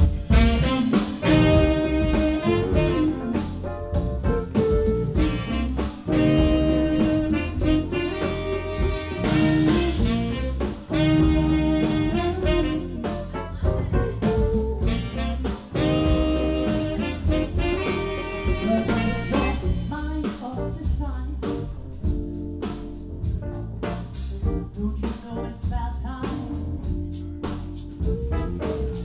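Live band playing, with drums, electric bass and keys under a two-saxophone horn section. The horns play a repeated phrase about every five seconds, then drop back about twenty seconds in while the rhythm section keeps going.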